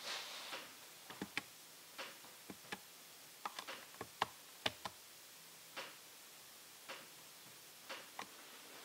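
Faint, irregular clicking and tapping on a laptop's keys or touchpad, well over a dozen sharp clicks at uneven intervals, some in quick clusters, after a short hiss at the start.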